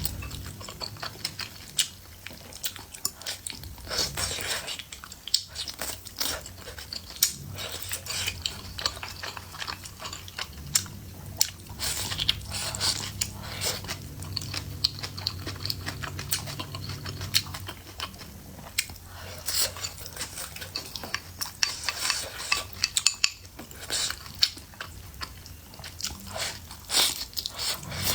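A person eating close to the microphone: chewing and crunching bites, with many short clicks of utensils against a bowl or plate.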